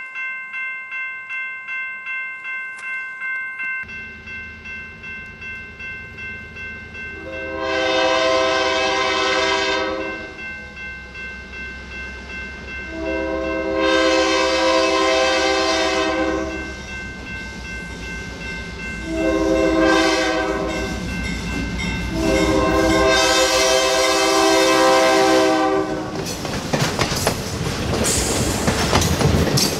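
Grade-crossing warning bells ringing as a diesel locomotive approaches, blowing its horn in the crossing pattern: long, long, short, long, over a building engine rumble. Near the end the passenger cars pass close by, wheels clattering over the rail joints.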